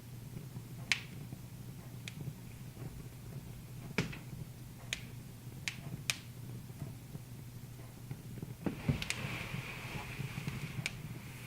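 Wood fire crackling in a fireplace: sharp, irregular pops a second or so apart over a low steady hum. About nine seconds in, a hiss joins.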